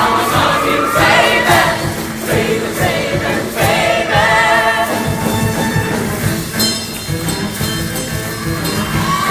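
High school show choir singing in full voice over a steady accompaniment with a regular beat.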